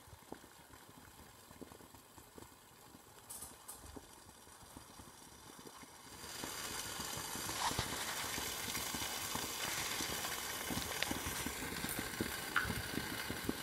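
Freshly lit alcohol stove burning: faint at first with a few light clicks, then a steady, even rushing hiss that grows louder about six seconds in and holds.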